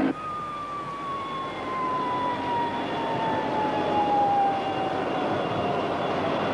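Fiat G.91's Bristol Siddeley Orpheus turbojet running down after landing: a single whine falling steadily in pitch over several seconds, over a steady rushing hiss.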